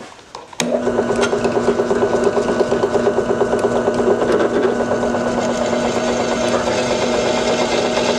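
Electric drill starting about half a second in and running steadily while boring pin holes through the steel sword tang, a constant motor hum with a fast, even chatter over it.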